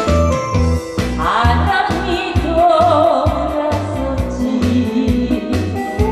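Korean trot song playing over loudspeakers: a steady heavy beat, with a wavering, vibrato-laden singing voice carrying the melody from about a second in.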